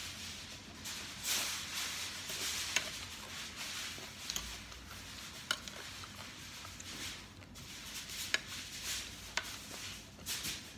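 Eating sounds: chewing and mouth noises, with a handful of sharp clinks of a metal fork and spoon against the plate and a king crab leg's shell.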